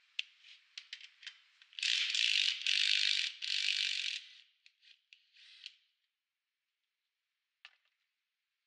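Cordless impact wrench hammering in three short bursts of under a second each, starting about two seconds in. It is undoing the top nut of a car's coil-spring strut held compressed in a spring compressor. Light clicks and knocks of metal parts being handled come before and after.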